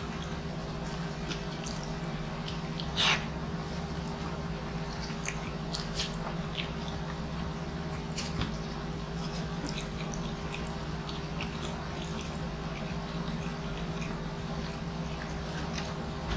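Close-miked eating by hand: chewing and wet mouth smacks with many small sticky clicks as rice and meat are eaten, with one brief louder sound about three seconds in. A steady low hum runs underneath.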